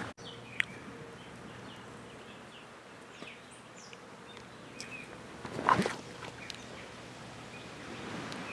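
Fibrous coconut husk being torn apart by hand: one loud, rough tearing and scraping burst a little over halfway through. Underneath is steady outdoor background noise with faint bird chirps.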